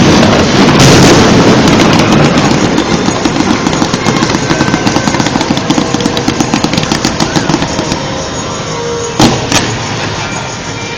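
Aerial fireworks: loud bursts at the start, then a dense crackle of many rapid pops that slowly fades, and two sharp bangs near the end.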